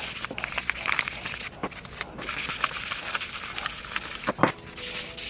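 Fine 1500-grit sandpaper scratching as a small steel wrench part is rubbed back and forth on it by hand, a rasping hiss with scattered small clicks and knocks.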